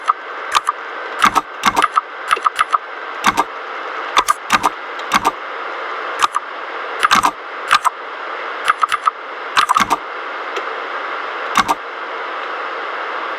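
Mechanical keyboard with linear red switches being typed on: irregular, unhurried key presses, each a sharp clack, over a steady hiss, stopping about twelve seconds in.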